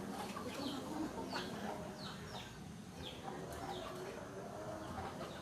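Faint chickens calling in the background: short high falling calls, about two a second.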